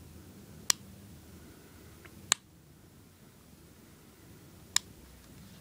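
Antique double-action top-break revolver, a Belgian copy of an 1880s Smith & Wesson .38, being worked by hand. Its hammer and action give three sharp metallic clicks about two seconds apart, with a fainter click just before the second.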